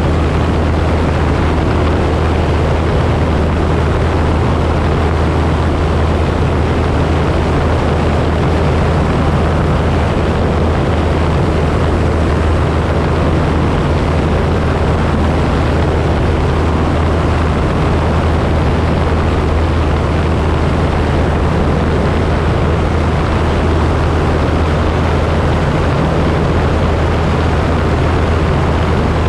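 Single-engine light aircraft's piston engine and propeller running steadily in cruise flight: a constant low drone with a rush of airflow noise over it on an outside-mounted camera.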